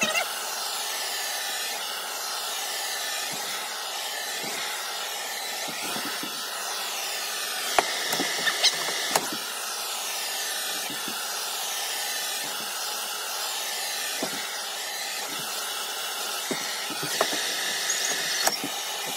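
Handheld gas torch burning with a steady hiss as its flame is played over a wooden axe handle. A few sharp clicks and knocks come about eight seconds in and again near the end.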